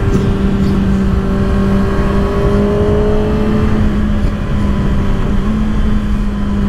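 Kawasaki ZX-6R's inline-four engine running steadily at cruising speed, over a rush of wind and road noise. The pitch creeps up slightly, then part of the engine note fades about four seconds in, and it steps up a little near the end.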